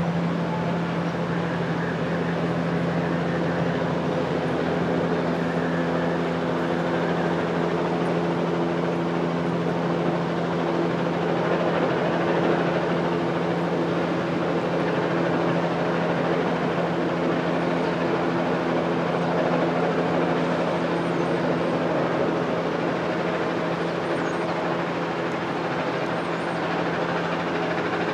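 A large vehicle engine idling steadily: a constant low hum with several steady tones, some of which fade in and out.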